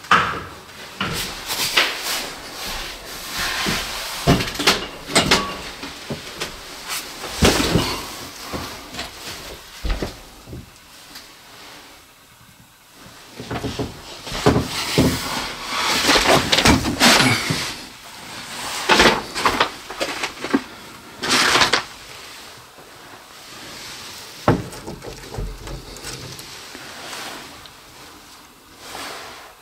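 Irregular knocks, clatters and rustling scrapes of objects being handled and moved, like doors, drawers or debris, in a small room.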